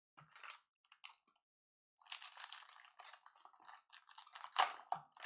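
Crinkling of a foil trading-card pack wrapper as it is ripped open: a few short crackles first, then continuous crinkling from about two seconds in, with a sharper rip near the end.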